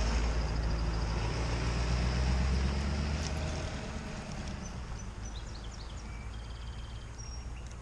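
Pickup truck engine running as the truck pulls away, its low sound fading out over the first four seconds. Short high bird chirps follow in the second half.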